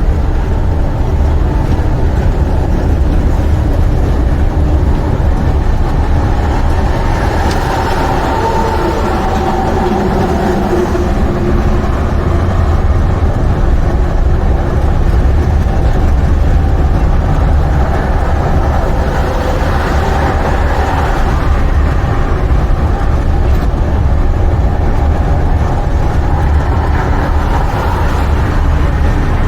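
Semi truck's MaxxForce 13 diesel engine and road noise heard from inside the cab while driving at highway speed: a steady low rumble, with the engine note shifting a couple of times.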